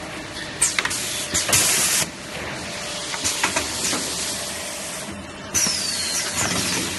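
Semi-automatic roll-packing machine at work: pneumatic cylinders release a loud burst of air hiss about a second and a half in, and another starts about five and a half seconds in with a short falling squeak, amid clicks, plastic bag rustling and steady factory machinery noise.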